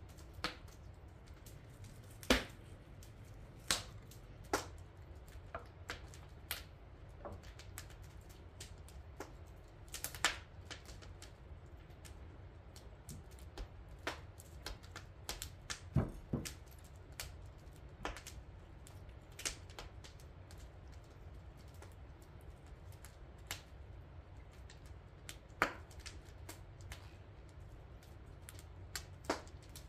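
Wood fire crackling: irregular sharp pops and snaps over a low steady rumble.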